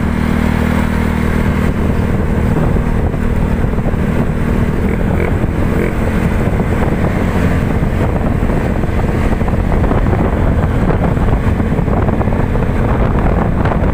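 Yamaha Mio Sporty scooter's single-cylinder four-stroke engine running at a steady speed on the road through a gutted ('kalkal') stock muffler, with wind noise on the microphone.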